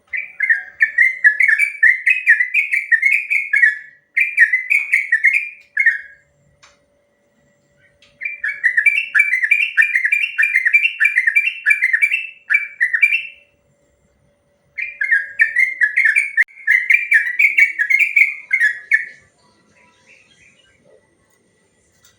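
Sooty-headed bulbul (trucuk) singing its long rapid-fire 'ropel' song: quick runs of repeated whistled phrases, about two a second, in three bouts broken by short pauses, then falling quiet near the end.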